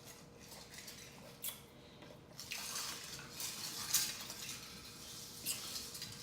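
Crushed ice crunching and clinking, a run of irregular crisp crackles that is loudest about four seconds in.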